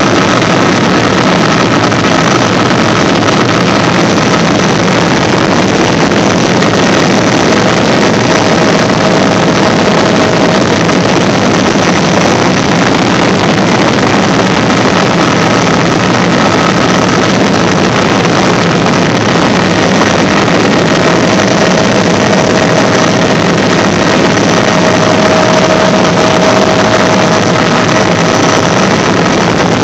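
Bell 206B-3 JetRanger III helicopter in flight, heard from inside the cabin: a loud, steady rush of turbine and rotor noise, with faint whining tones that come and go.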